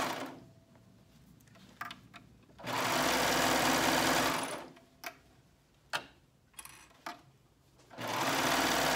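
Four-thread serger (overlock machine) seaming a sleeve to a shirt's armhole in short runs: it stops a moment in, runs again for about two seconds from about three seconds in, and starts up again near the end. A few small clicks sound in the pauses.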